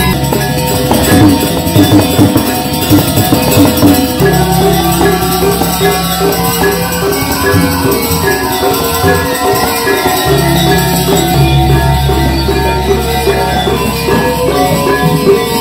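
Balinese gamelan playing: fast interlocking notes on bronze metallophones over hand-struck kendang drum strokes. Deep tones ring for several seconds starting about four seconds in and again about ten seconds in.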